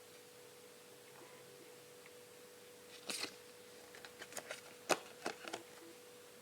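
Handling noises during a smartphone unboxing: a brief rustle about three seconds in, then a run of light clicks and taps, the sharpest near five seconds, over a faint steady hum.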